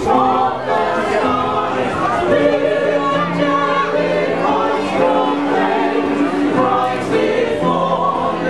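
Small mixed choir of carol singers singing a Christmas carol together, men's and women's voices holding long notes, with an acoustic guitar accompanying.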